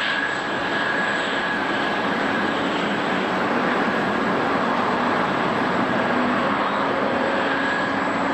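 Jet airliner engines running, a steady rushing noise with a faint high whine held through it.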